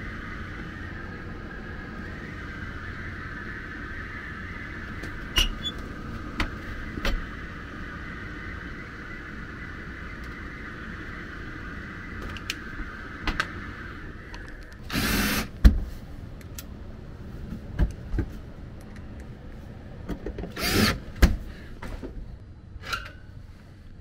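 A residential indoor air handler running with a steady hum, over clicks and knocks of equipment being handled. The hum stops about two-thirds of the way through. Two louder scraping clatters and a few more knocks follow.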